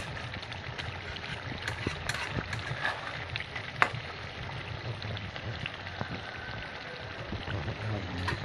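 Spatula scraping and knocking against a metal kadhai as a thick duck curry is stirred, with a sharp knock about four seconds in, over a steady low rumble.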